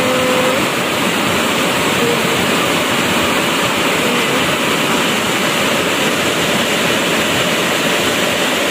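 Heavy rain pouring down in a dense, steady rush.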